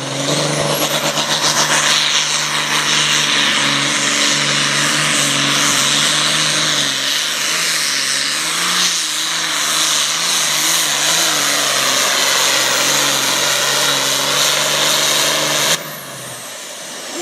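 Super Farm class pulling tractor's turbocharged diesel engine running hard at full throttle. A high whistle climbs in the first second, and the engine pitch wavers up and down midway through the run. About a second before the end the engine sound cuts off suddenly, leaving a falling whistle.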